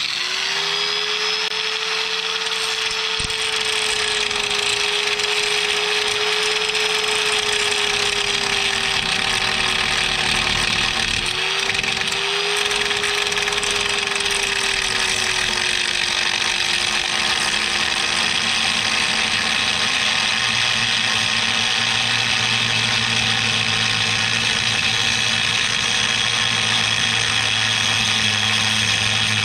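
Electric angle grinder running continuously as it grinds off the head of a bracket bolt that spins in its locking groove. Its motor whine dips briefly about halfway through and sags slowly in pitch later as it is pressed into the cut.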